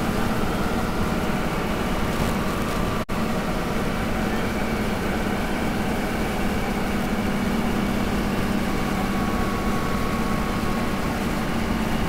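Toyota Land Cruiser 60 Series driving at highway speed, heard from inside the cabin: a steady drone of engine and road noise with a low hum. The sound drops out for an instant about three seconds in.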